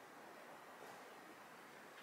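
Near silence: a faint steady hiss of the outdoors, with a very faint brief scuff about a second in.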